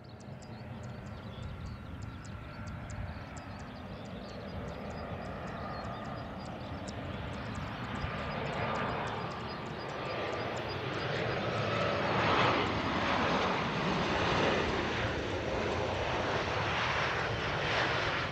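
Boeing 737-800 airliner's CFM56-7B turbofan engines on final approach, a steady jet whine and rumble. The sound grows louder over the first twelve seconds or so as the plane comes close, then stays loud as it flies past and lands.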